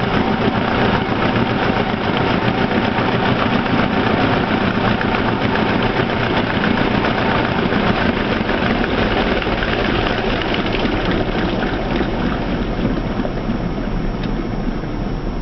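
Atlas clothes washer in its spin cycle after a rinse, the motor and spinning drum making a steady, loud mechanical noise that grows a little quieter near the end.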